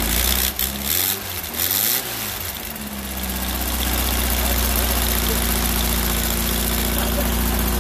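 1835cc air-cooled VW flat-four engine running on its first start after 29 years of sitting. It is revved twice in the first three seconds, the pitch rising and falling each time, then settles into a steady idle.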